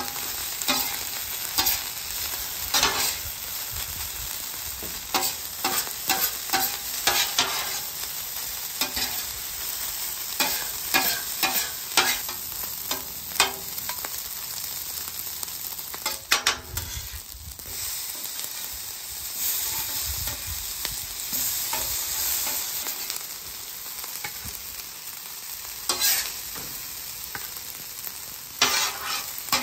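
Garlic fried rice sizzling on a hot steel flat-top griddle while a metal spatula scrapes and clicks against the griddle plate, tossing and chopping the crisping rice. The scraping comes thick and fast in the first half, thins out, and picks up again near the end as the rice is scraped up off the griddle.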